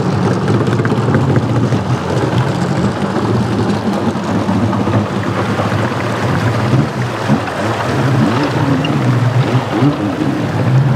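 A 100 HP mini jet boat's engine running steadily under way, with a rush of water and wind noise.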